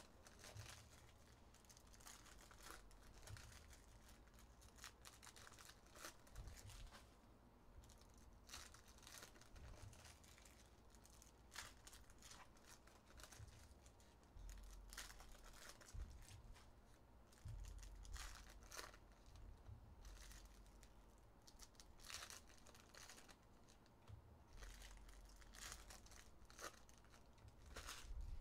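Faint foil trading-card pack wrappers being torn open and crinkled, with repeated short rustles and tears and some soft bumps as cards are handled.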